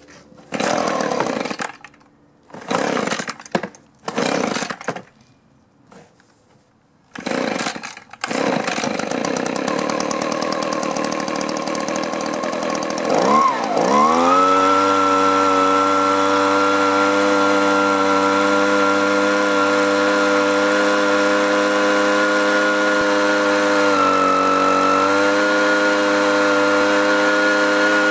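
Echo handheld leaf blower's two-stroke engine being pull-started: several rasping pulls of the recoil starter cord, then the engine catches about eight seconds in. It runs, dips and picks up speed about thirteen seconds in, then runs steadily with one brief sag near the end. Its low-speed mixture screw has just been turned out a quarter turn to cure hard starting and stalling.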